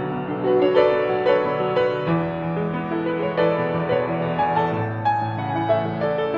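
Background music led by piano, soft and slow, with sustained notes changing about every half second.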